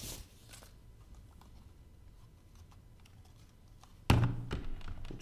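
Desk-phone parts being handled during unboxing: faint small plastic clicks and taps. About four seconds in comes one loud knock, followed by a short clatter.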